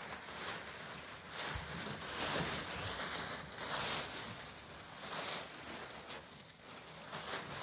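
Crumpled tissue paper rustling and crinkling as kittens move through it, in irregular crackles that swell about two and four seconds in.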